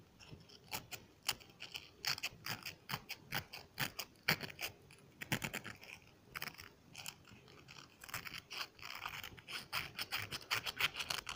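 Crumpled plastic film crinkling and scratching close to the microphone: an irregular run of sharp crackles. They come densest from about two to six seconds in and again from about eight seconds on, with a lull between.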